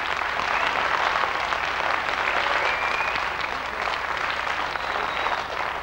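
A large audience in a hall applauding steadily.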